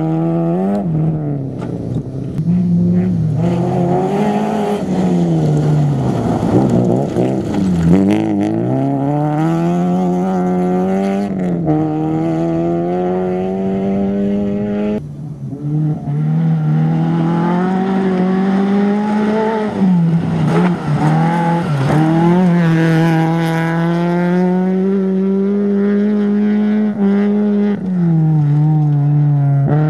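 Rally car engines running at high revs, their pitch repeatedly dropping and climbing again with gear changes and lifts off the throttle. About halfway through it cuts abruptly to another car doing the same.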